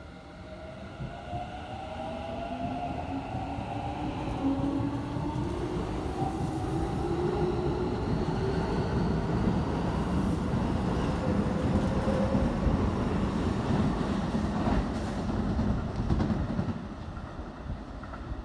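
Keikyu 1000-series stainless electric train pulling out and accelerating, its inverter and traction motors giving several whines that climb steadily in pitch. Wheel and rail running noise builds loud as the cars pass close by, then eases near the end as the train draws away.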